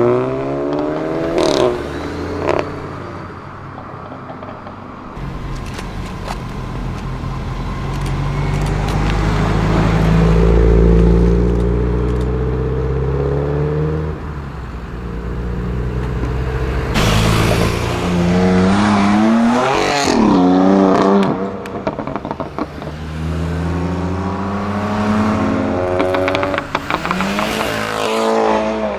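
Several performance cars accelerating hard away one after another, engines revving up through the gears with breaks at each shift. It opens with a Lamborghini Huracán Performante's V10 pulling away, and about halfway a modified Subaru Impreza WRX STI's flat-four rumbles past.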